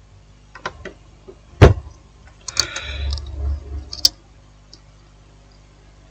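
Handling of a small phone motherboard and its metal shield on a workbench: a few light clicks, a sharp knock about a second and a half in, then a second or so of rustling that ends in a click.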